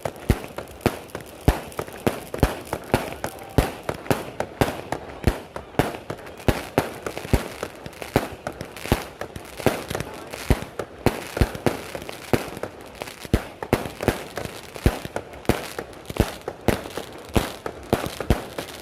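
Firecrackers and fireworks going off in quick succession: sharp bangs, several a second at uneven spacing, with crackling between them.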